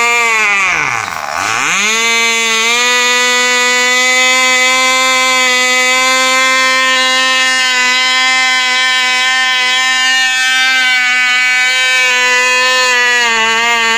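Cox .049 two-stroke glow engine running flat out with a steady, high buzzing whine while its needle valve is turned. About a second in the pitch dives steeply, nearly to a stall, then climbs back over the next second or two; near the end it starts to fall again.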